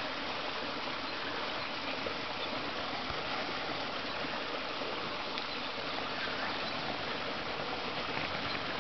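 Steady rush of running water: an even hiss with no separate splashes or knocks.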